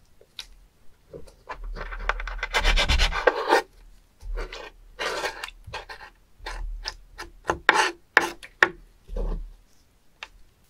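Kitchen knife scraping along a wooden cutting board as it slits open and scrapes out a spoon worm: one long rasping stroke about two seconds in, then a string of shorter scrapes.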